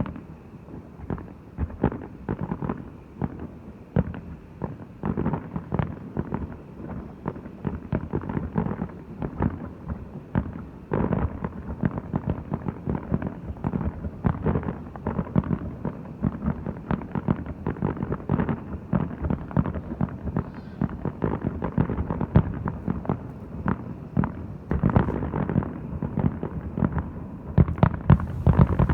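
Fireworks display: a rapid, unbroken barrage of bangs, many overlapping, growing denser and louder near the end.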